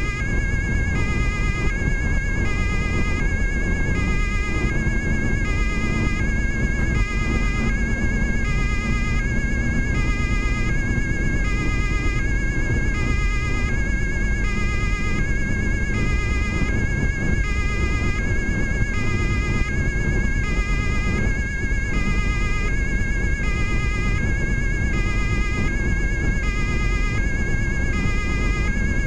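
German police two-tone siren sounding continuously, alternating high and low about once every one and a half seconds, heard from inside a car's cabin over heavy road and engine noise.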